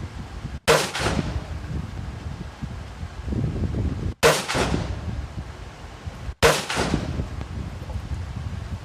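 Three rifle shots, the first about half a second in, the next two about two seconds apart near the middle and toward the end, each with a short ringing tail. Wind rumbles on the microphone between them.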